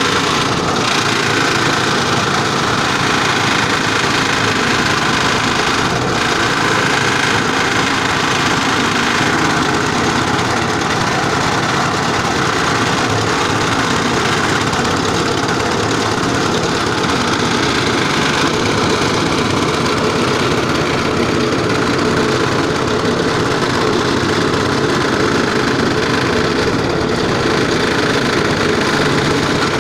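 Multifunction animal-feed chopper and mixer machine running steadily, a loud, constant mechanical noise that does not change throughout.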